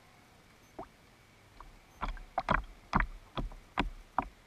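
Small waves slapping and plopping against the hull of a drifting RC boat, with no motor running: one faint plop about a second in, then a quick run of about seven sharp slaps starting about two seconds in.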